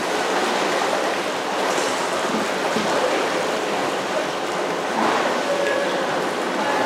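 Steady rushing, sloshing water in an indoor swimming pool.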